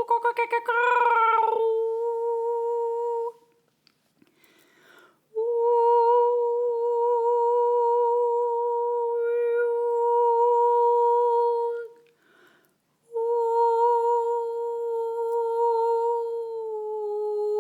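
A woman's voice toning in long held, hummed notes on one steady pitch with a slight waver. A few quick sung syllables come first, then three long notes, each broken off by a breath; the last note sinks a little in pitch near the end.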